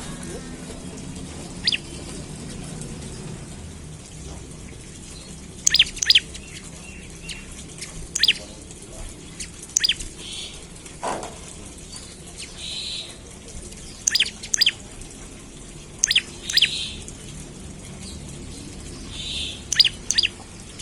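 Prenjak lumut calling: short, sharp, high notes that sweep quickly downward, singly or in quick pairs every one to two seconds, with short buzzy rattles between them. It is a lure call meant to set other prenjak calling.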